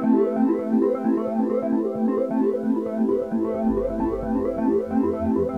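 Background music: quick repeated keyboard notes over a held low note, with a pulsing bass beat coming in about three and a half seconds in.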